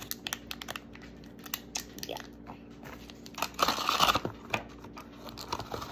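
Plastic toy packaging crinkling and rustling in the hands, with scattered small clicks and a louder burst of rustling about three and a half seconds in as a cardboard toy box is picked up and handled.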